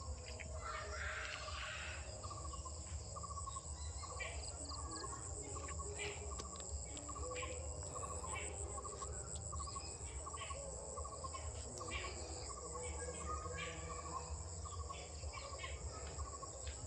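Insects trilling steadily with a high, fast-pulsing drone, while a small animal repeats short chirping notes about once or twice a second; a low rumble runs underneath.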